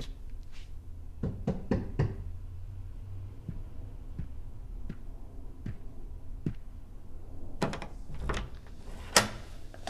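Knocking on a door: three quick knocks a little over a second in, then three more sharp knocks near the end, over a low steady hum.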